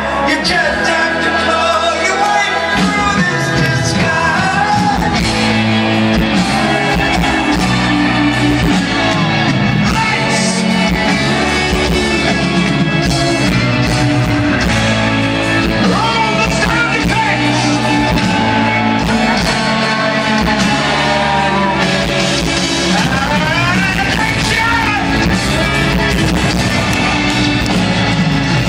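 Live rock band playing through a stadium sound system, with a sung lead vocal over the band.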